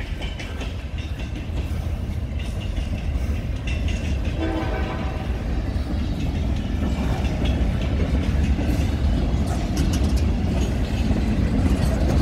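CSX freight train rolling past: the steel wheels of covered hoppers and boxcars rumble and clack over the rail joints, growing louder. A brief pitched tone sounds about four and a half seconds in.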